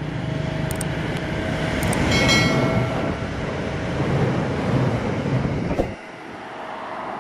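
Diesel train running past: a steady rumble of engine and wheels on rail, with a brief high-pitched squeal about two seconds in. Near the end the sound drops abruptly to a quieter steady noise.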